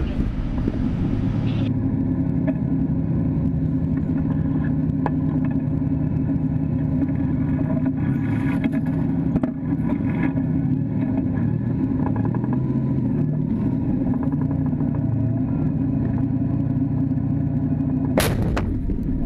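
T-72 tank's V12 diesel engine running with a steady, even drone, heard from a camera mounted on the tank's hull as it moves forward. A single sharp bang comes near the end.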